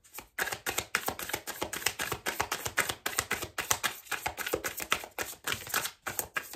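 A tarot deck being shuffled by hand: a rapid, continuous patter of cards slapping and flicking against each other, many clicks a second.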